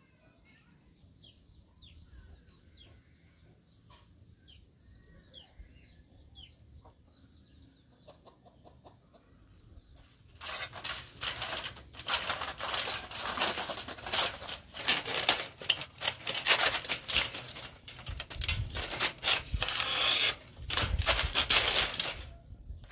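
Aluminium foil crinkling and rustling loudly as a large sheet is unrolled and smoothed flat by hand, starting about ten seconds in and going on in uneven rushes. Before it, faint short chirps of small birds.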